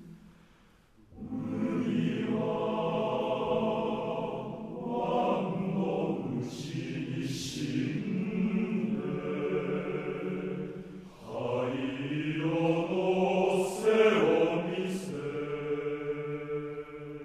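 Male voice choir singing a cappella in full chords, with a short pause about a second in and a brief break near the middle before the singing resumes; a few sharp 's' consonants cut through.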